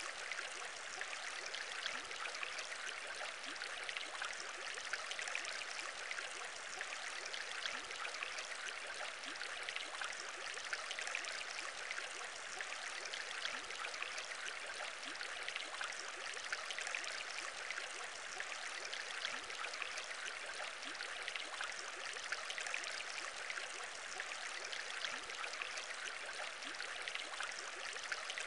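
Aquarium water bubbling steadily: a dense, unbroken stream of small bubbles popping and gurgling, with many quick little rising blips.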